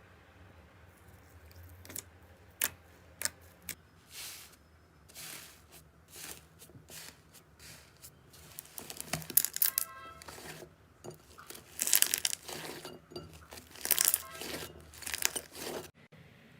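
Slime being pressed and pulled by hand, crackling and popping: a few sharp single pops at first, then longer, louder bursts of crunchy crackling in the second half.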